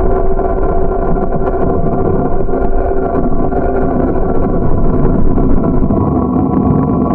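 Steady riding noise from a moving bicycle, with wind on the microphone and tyres rolling on asphalt, under a steady hum.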